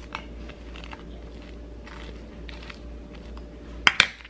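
Soft rustling and light scraping as a fork presses filling into a tortilla wrap on a plate, then two sharp metal clinks near the end as the fork is set down on the countertop.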